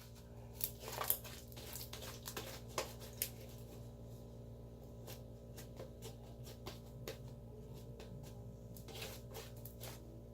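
Sticky glitter slime being squished and stretched by hand, faint irregular squelches and small clicks over a steady low hum.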